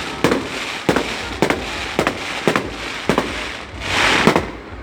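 Fireworks going off in a rapid series, a sharp bang about every half second, with a louder hissing, crackling stretch near the end.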